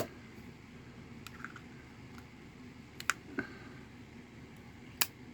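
A few separate sharp metallic clicks as a Zippo lighter case fitted with a butane torch insert is handled. There is no torch hiss.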